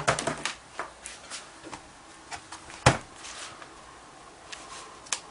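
A tablet being pressed and snapped into a tight-fitting tablet case: a quick cluster of clicks and knocks at the start, one loud snap about three seconds in, and another click near the end, with light rustling of handling in between.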